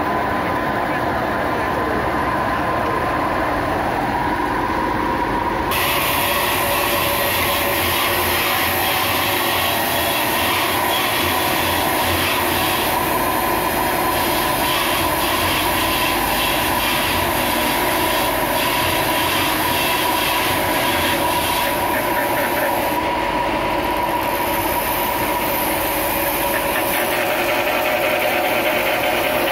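Electric motor driving a heavy flywheel through a V-belt and pulley, running steadily at about 1000 rpm with a steady whine. A hiss in the high range comes in about six seconds in.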